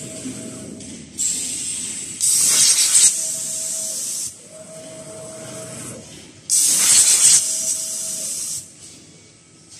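CNC V-grooving machine for sheet metal running: a steady motor whine that comes and goes, with three bursts of loud hissing lasting one to two seconds each, the second the loudest.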